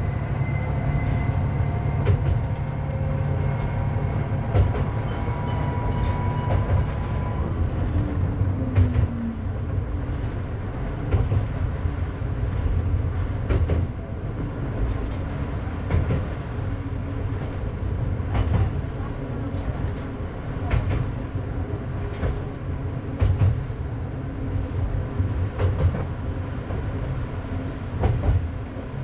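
Tsugaru 21 diesel railcar running on single track, heard from inside the cab: a steady low engine and running rumble. Over the first several seconds a whine climbs slightly in pitch, then drops and fades about eight seconds in. Rail-joint clicks come at irregular intervals after that.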